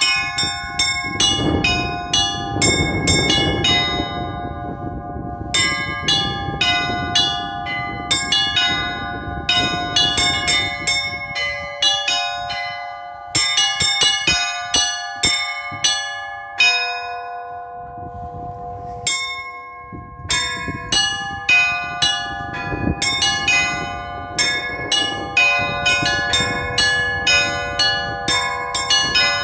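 Orthodox church bells rung by a single bell-ringer: quick rhythmic strikes on the small bells over the sustained ring of the larger ones, with a few short lulls where the bells ring on between patterns.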